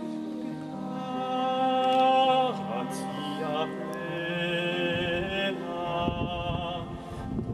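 A small group of men singing sacred chant together, slow and with long held notes.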